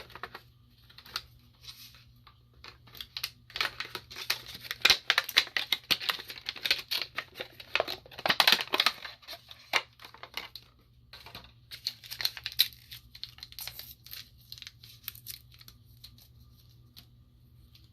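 Product packaging being torn and crinkled open by hand: two long spells of rapid ripping and crackling, the second starting a little past the middle.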